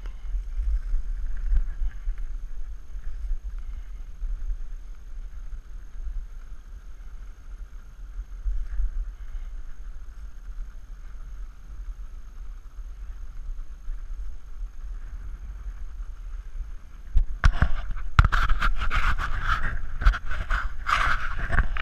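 Wind rumbling on a GoPro microphone over calm water. About three-quarters of the way in it gives way to louder, irregular crackling and knocks.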